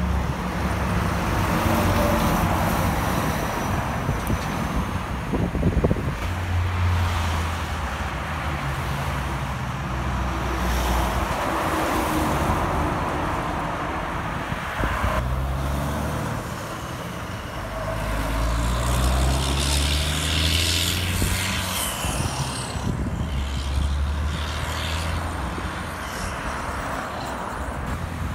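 Highway traffic: heavy diesel trucks and cars passing at close range over steady tyre and road noise. Truck engines pull away with notes that climb in steps as they go up through the gears, twice, with a burst of hiss about three quarters of the way through.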